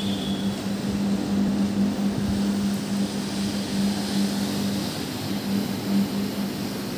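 Single-disc rotary floor machine running at a steady pitch, its motor humming as the rotating brush scrubs shampoo into carpet.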